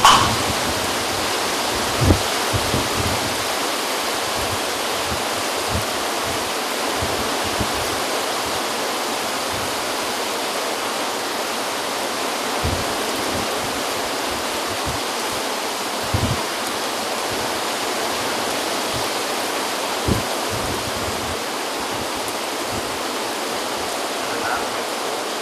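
Steady rushing noise of tropical-storm wind, rain and heavy surf, broken by a few short low thumps.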